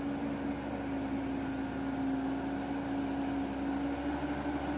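Diesel engine of a laden Mitsubishi Canter (Colt Diesel HD 125 PS) truck running under load on a slippery uphill climb, holding a steady drone.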